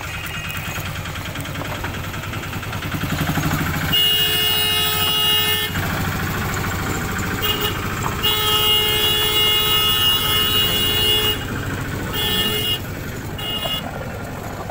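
Miniature park train's engine running as the train moves off, with its horn sounding in several blasts: one of under two seconds about four seconds in, a long one of about three seconds, then two short toots near the end.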